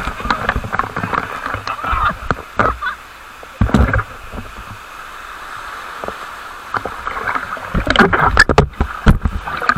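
Steady rush of falling water, with heavy low thumps near the middle and again near the end.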